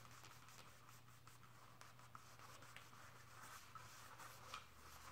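Faint rubbing and rustling of a paper towel being wiped and pushed through an aluminium electronic throttle body's bore to soak up cleaner, with a few small clicks and a sharper tick about four and a half seconds in.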